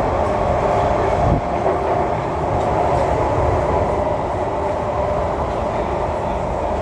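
Singapore MRT train running steadily: a continuous rumble with a steady whine, and a single knock about a second and a half in.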